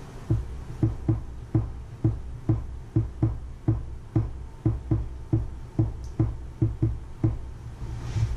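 Dull knocks on a hard surface, about two a second and unevenly spaced, over a low steady hum.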